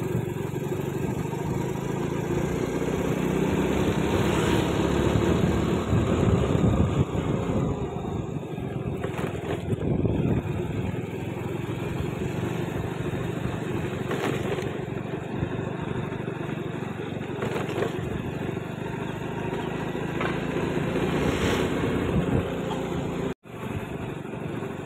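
Small motorcycle engine running steadily with wind and road noise while riding on a concrete road. The sound cuts out for an instant near the end.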